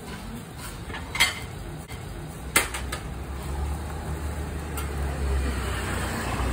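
Metal clinks of a spoon and cookware against cast-iron bánh xèo pans: two sharp clanks about a second and two and a half seconds in, a few lighter ticks after, over a steady low rumble.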